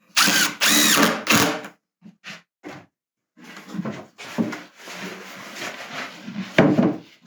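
Power drill driving screws into wood. It starts with loud bursts of the motor spinning up and down, then gives a few short blips, then a longer, softer run, and ends on a final loud burst as a screw is driven home.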